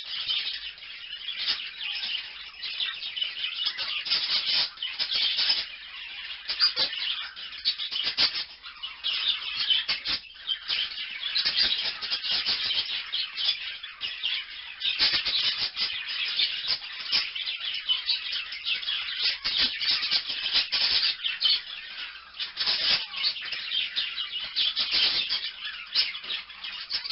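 Small parrots chattering in a dense, unbroken stream of rapid high chirps and warbles.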